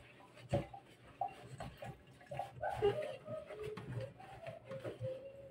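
Wet sponge scrubbing the inside of a plastic water-purifier filter housing, rubbing with short squeaks, and a knock about half a second in.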